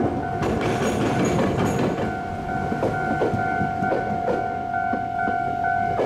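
Iyotetsu suburban train's last car rolling over the level crossing where it meets the tram tracks, its wheels clattering over the rail joints; the rumble dies away about two seconds in. A level-crossing warning bell rings steadily throughout with a regular pulsing beat.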